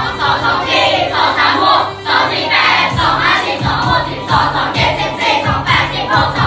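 A class of students chanting together in unison over dance music with a steady beat, reciting the multiplication table.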